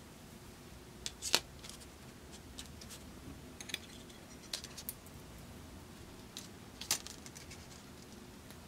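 Light clicks and taps of bent, hammered 14-gauge copper wire pieces being handled and set down on paper over a wooden bench, scattered and irregular, with sharper clicks about a second in and again about seven seconds in.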